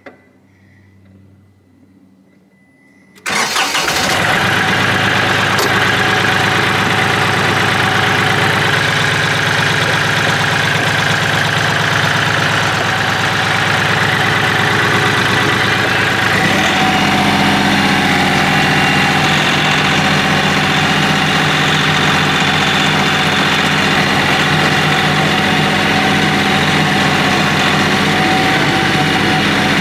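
KIOTI CK3510 compact tractor's three-cylinder diesel engine starting up suddenly about three seconds in after a quiet moment with a faint high tone, then running steadily; its note changes about halfway through.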